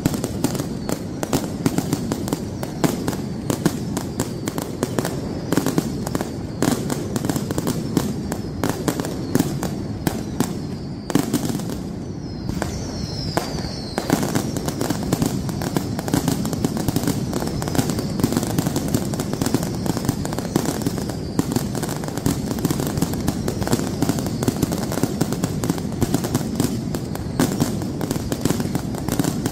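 A dense fireworks barrage: aerial shells and firecrackers bang and crackle in rapid, continuous succession. A falling whistle cuts through about twelve seconds in.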